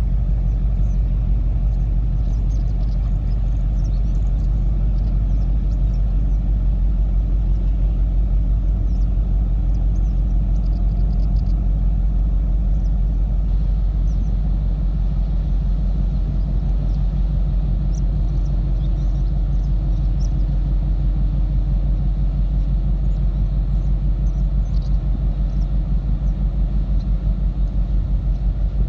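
Steady low rumble with a fast, even pulsing that grows stronger near the end, with a few faint high chirps over it.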